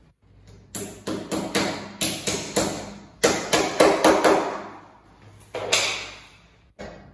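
A hammer striking in quick runs of blows, as when parts are knocked together during flat-pack bed assembly: about eight blows, then six more after a short pause, then a single blow.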